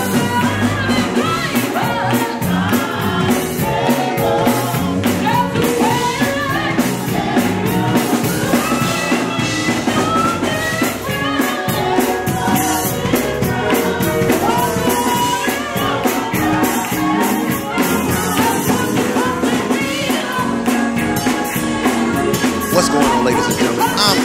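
Live gospel singing by a women's group, a lead singer over backing voices, with musical accompaniment and hand-clapping.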